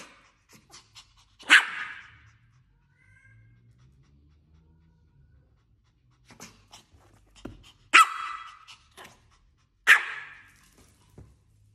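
Small white Pomeranian barking: three sharp single barks, one about a second and a half in and two near the end, two seconds apart, with faint short ticks between them.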